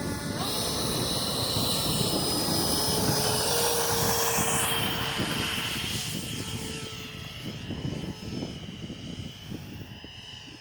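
Freewing F/A-18 RC model jet's electric ducted fans whining at high pitch, loud at first and fading away over the last few seconds.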